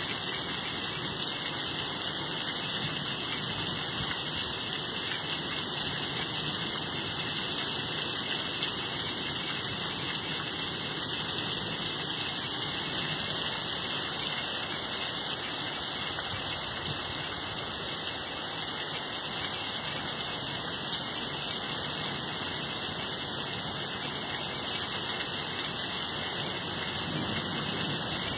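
Heavy rain pouring steadily, a constant hiss of rain falling on a waterlogged lawn and pavement.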